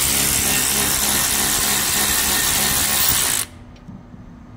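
Power tool running steadily for about three and a half seconds, spinning out an 18 mm rear brake caliper bracket bolt, then cutting off suddenly.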